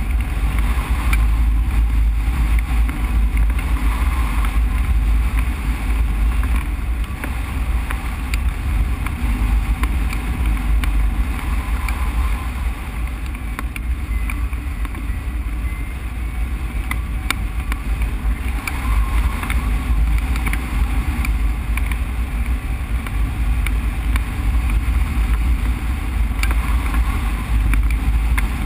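Steady wind buffeting the microphone of a camera mounted on a hang glider in free flight: a loud, deep rumble of rushing air.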